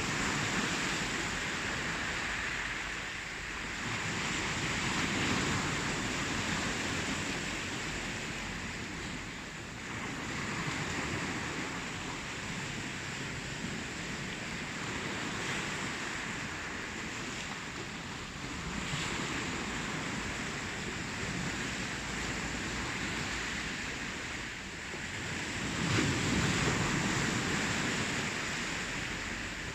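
Ocean waves washing in, a continuous rushing that swells and ebbs every few seconds, with the loudest swell near the end.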